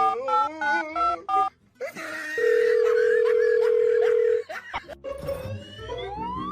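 Telephone keypad tones, short paired beeps in quick succession with a voice under them, then a loud steady tone lasting about two seconds. Near the end a rising whistle-like glide.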